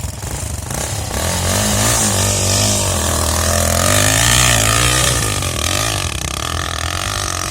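Motocross dirt bike engine revving, its pitch rising and falling. It gets louder about a second in and eases off after about five seconds.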